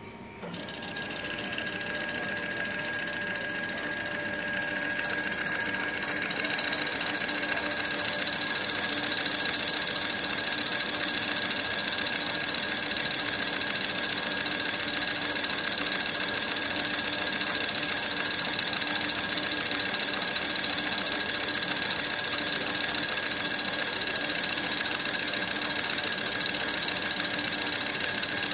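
Datamax I-Class Mark II thermal label printer running a continuous print job, its motor feeding barcode labels past the printhead with a steady high whine. It starts about half a second in and grows louder over the first several seconds before holding steady.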